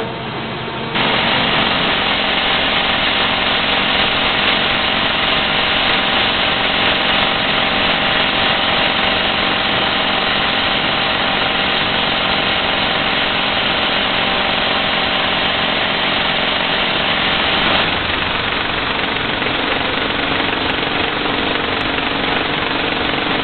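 Rock drill on a robotic slope-drilling rig, drilling into a rock face. It kicks in loudly about a second in over the steady running of the rig's motor, keeps going without a break, and shifts slightly in tone about eighteen seconds in.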